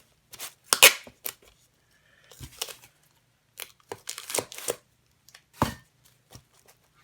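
Tape being pulled and torn as an area is taped over: a string of short, sharp ripping and clicking noises with quiet gaps between, the loudest about a second in and again near six seconds.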